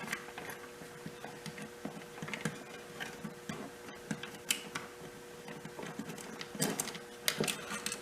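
Scattered light clicks and taps of hands working wires and small parts in an electrical control box, over a steady hum.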